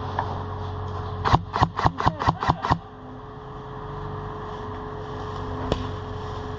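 Airsoft gun firing a quick string of about eight shots, about five a second, followed by one more single shot a few seconds later, over a steady low hum.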